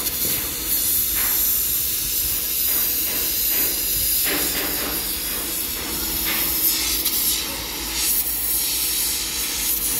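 Steady hissing noise of shipyard work, with a few faint knocks and a steady low hum that comes in about four seconds in.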